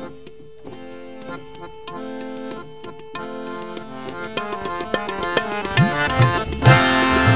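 Instrumental interlude of a Punjabi classical song: a harmonium holding a melody over tabla. About halfway through the tabla grows busier and louder, with low bass-drum strokes that bend in pitch, and the ensemble swells fuller near the end.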